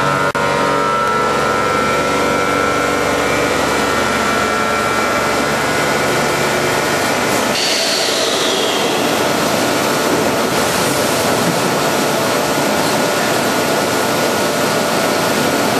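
VC999 automatic belt vacuum chamber packaging machine running with a loud, steady mechanical noise and held humming tones. About seven and a half seconds in the sound changes abruptly, with a brief high hiss that falls in pitch, then the steady machine noise carries on.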